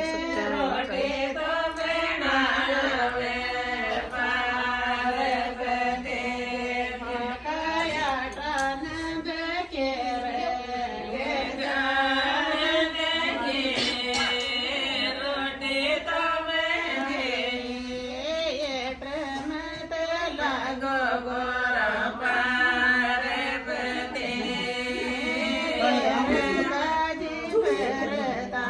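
Chant-like singing of a melodic, devotional-sounding song, held and bending notes sung over a steady drone without a break.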